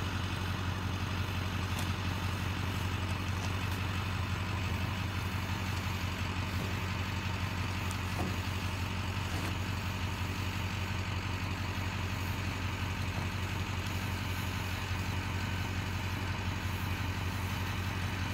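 A vehicle engine idling steadily, a low, even hum that does not change.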